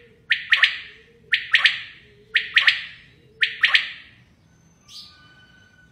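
Common quail calling: a sharp three-note call repeated about once a second, four times, then stopping, with a faint short call about five seconds in.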